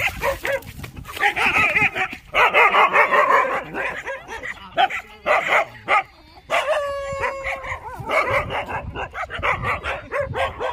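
Dogs barking and yelping over and over, with a longer held cry about six and a half seconds in.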